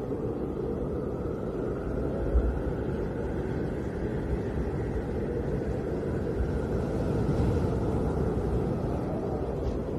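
Snowstorm wind blowing steadily, a deep rumbling noise with a faint higher whistle that wavers above it. A brief stronger gust comes about two seconds in.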